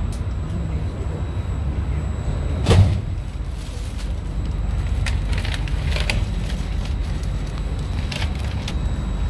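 Steady low rumble inside a stationary regional train carriage, with one loud thump a little under three seconds in and a few lighter knocks later.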